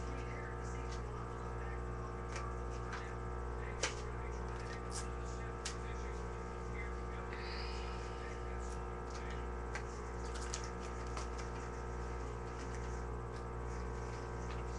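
A steady hum with a few sharp clicks, the loudest about four seconds in.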